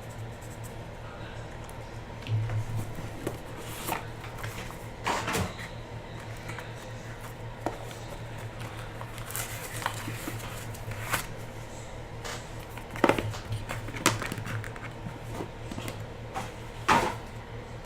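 Hands opening a trading-card hobby box and handling its packaging and cards: scattered clicks, taps and rustles of cardboard and wrapping, over a steady low hum.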